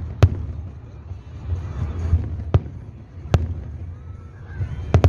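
Aerial firework shells bursting high overhead, four sharp bangs spaced irregularly over a continuous low rumble from the rest of the display.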